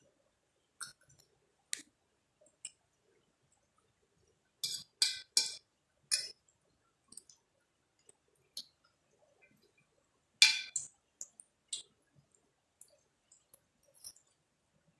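Eating at a plate: scattered sharp clicks and clinks of cutlery against the dish, a few in quick clusters, the loudest about ten seconds in.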